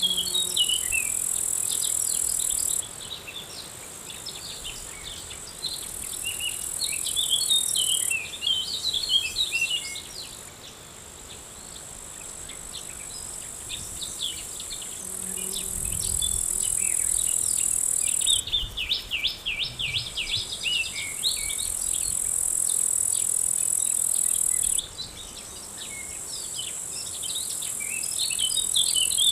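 Insects trilling in a high, steady buzz that starts and stops abruptly every few seconds, with small birds chirping in quick, scattered calls between the trills. A brief low rumble comes about halfway through.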